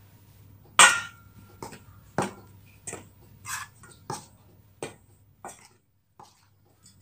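Hand tossing banana pieces in dry flour in a stainless steel bowl: a series of light knocks and scrapes against the bowl, about one every two-thirds of a second. The first knock is the loudest and leaves the bowl ringing briefly.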